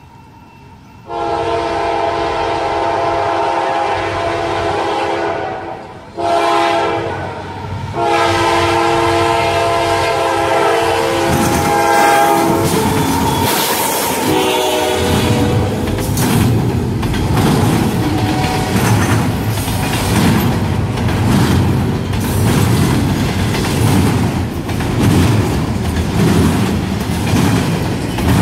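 CSX diesel freight locomotive's air horn sounding a long blast, a short one and a long one, the grade-crossing signal, the last blast dropping in pitch as the engine passes. Then the locomotive and the double-stack container cars rumble by, wheels clicking over the rail joints.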